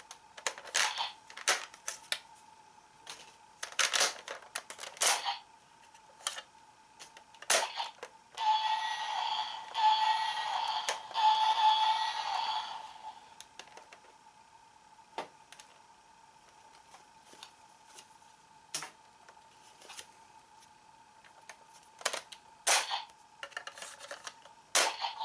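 Plastic clicks and snaps from a Kamen Rider Ryuki Dragvisor toy being handled and worked. About eight seconds in, the toy plays an electronic sound effect through its small speaker for about four seconds; this is the loudest part.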